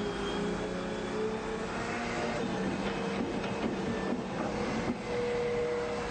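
Excavator engine running steadily under load while digging, with a few knocks from the bucket and arm.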